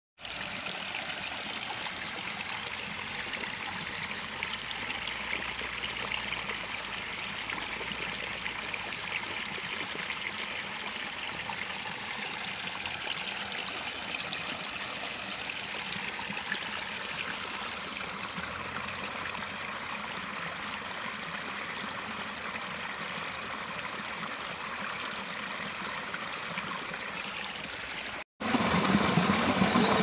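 A small stream running steadily over rock, water trickling and splashing down a narrow rocky channel. Near the end the sound drops out for an instant and comes back louder, as water tumbles over a small rock cascade.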